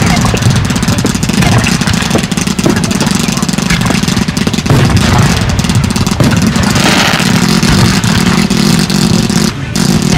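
Fireworks cake firing a rapid, unbroken stream of shots: dense crackling and popping over a steady rushing rumble. The rumble dips briefly near the end, then picks up again.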